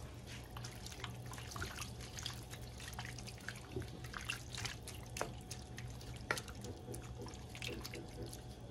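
Sliced flank steak in a thin soy-and-hoisin sauce bubbling in a nonstick pan while a wooden spatula stirs it: scattered wet pops and clicks, fairly quiet.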